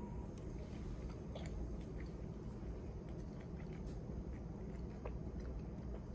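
A person chewing a chicken dumpling with her mouth closed: quiet, wet mouth clicks over a steady low hum.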